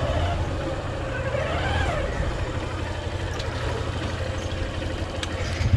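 Hero Hunk's 150 cc single-cylinder four-stroke engine idling steadily with the bike at a standstill, a low, even pulsing rumble.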